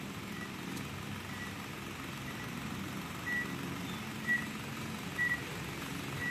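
A vehicle's reversing alarm beeping about once a second, getting louder toward the end, over a low steady hum.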